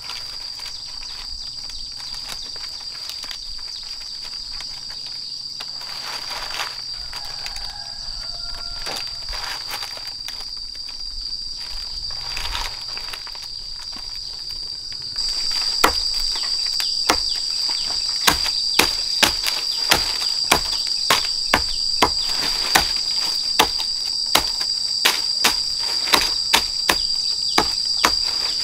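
A chorus of insects drones steadily at one high pitch. About halfway through it grows louder, and a regular knocking joins it at about two sharp taps a second.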